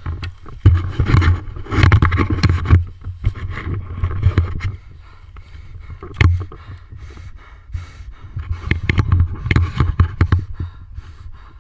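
Irregular rustling and scraping with low thumps and clicks close to the microphone, the noise of a player and gear moving. It eases off for a few seconds in the middle, then picks up again.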